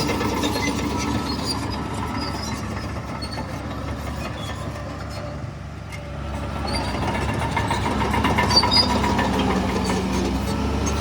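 Heavy diesel earthmoving machinery running. The engine sound eases off about halfway through, then builds again as the engine revs up, with faint scattered clanks over it.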